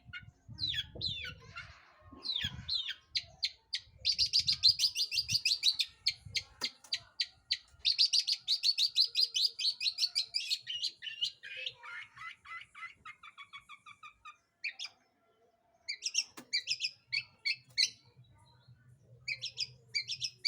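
Long-tailed shrike (cendet) singing in full voice: fast chattering trills of high notes, then a run of slower, lower repeated notes about two-thirds of the way in. After a short pause it goes back to scratchy chirps.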